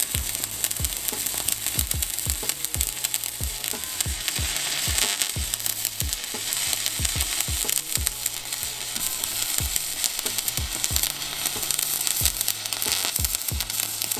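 Stick (MMA) welding arc crackling and sizzling steadily as a 3.2 mm rod electrode burns at 110 amps into 5 mm mild steel, fed by an EWM Pico 160 cel puls inverter. The arc runs unbroken throughout.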